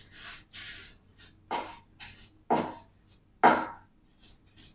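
Paint being stroked onto a wooden nightstand: a series of short swishes, the three loudest about a second apart.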